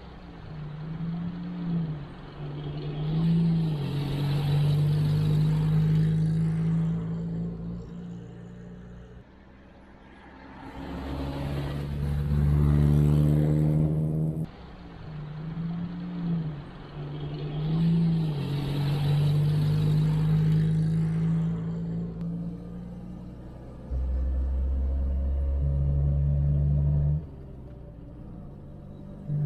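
Simca 8's 1200 cc four-cylinder engine running as the car drives, a steady hum with brief rises in pitch as it accelerates. The sound comes in several stretches that cut in and out suddenly.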